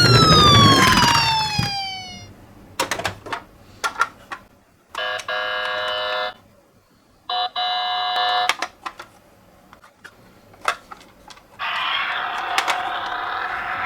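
Toy ambulance minicar's electronic siren dying away in a falling tone over the rattle of its wheels, then a few clicks and two short electronic tone blasts about a second apart. Near the end, a steady rattling noise starts again.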